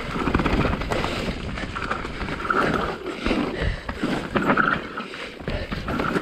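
Specialized Enduro mountain bike ridden down a loamy dirt trail: tyres rolling over the ground, with a dense irregular clatter of chain and frame over bumps.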